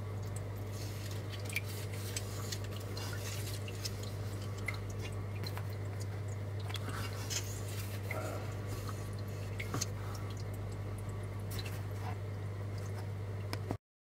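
Steady low hum with faint, scattered drips and small ticks of water from an aquarium.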